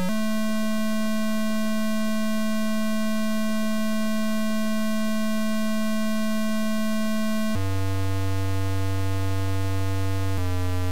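Deliver/Digi.3547 virus's payload sound effect from a PC speaker: a steady electronic tone held for about seven and a half seconds, then a sudden drop to a much lower tone that shifts pitch again near the end.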